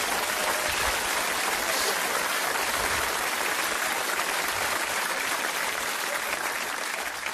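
Live audience applauding: a dense, steady clatter of clapping that slowly dies down toward the end.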